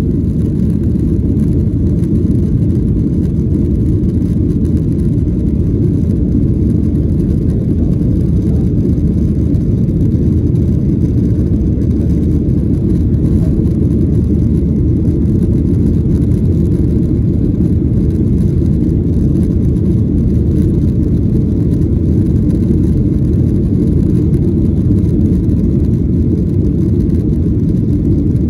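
Boeing 737-800 cabin noise during takeoff and initial climb: the CFM56 turbofan engines running at takeoff thrust with airflow, a loud, steady low rumble that does not change.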